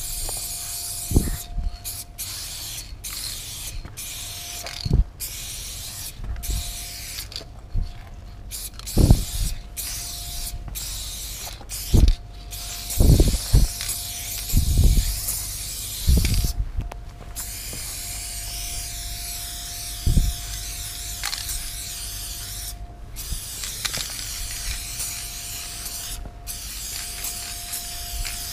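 Aerosol spray paint can hissing in long bursts onto a metal roll-down shutter, broken by many short pauses as the nozzle is let go, with a thin steady whistle under the hiss. About a dozen dull low thumps come in between.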